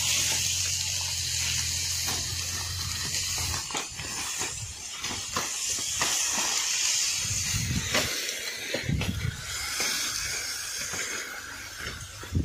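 Sugarcane being cut by hand: dry cane leaves rustle and crackle, with repeated sharp chops of a hand blade striking the stalks. A low steady hum stops about three and a half seconds in.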